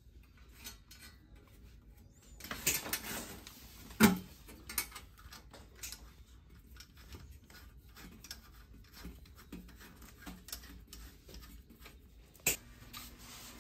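Insulated electrical cables rubbing and rustling as they are worked through a cable gland in a metal gland plate, with scattered light clicks. A sharp knock comes about four seconds in, and another near the end.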